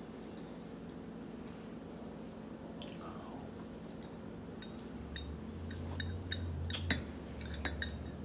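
Eating sounds: chewing, then from about halfway a run of light clinks of a metal spoon against a ceramic bowl, each with a short ring.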